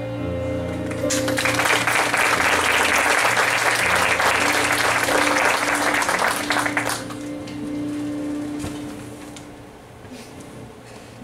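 Theatre audience applauding after a song, starting about a second in and dying away after about six seconds, over the song's held final musical chord. A low sustained note of the accompaniment lingers on faintly after the clapping fades.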